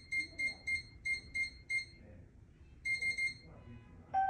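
Digital door lock keypad beeping as a code is punched in, about three to four beeps a second, then a quicker run of four beeps. An electronic chime begins just before the end, as the lock signals that it is opening.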